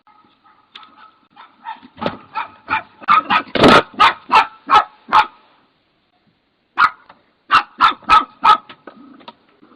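A dog barking over and over, about three barks a second, growing louder over the first few seconds; the barking stops for about a second and a half, then a second run of barks follows.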